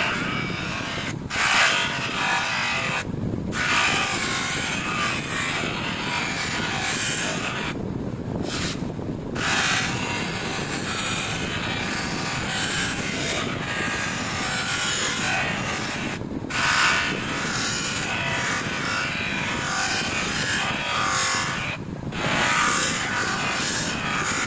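A motorcycle's rear footpeg being worked over with abrasive to polish it, a steady rubbing and scraping that breaks off briefly several times.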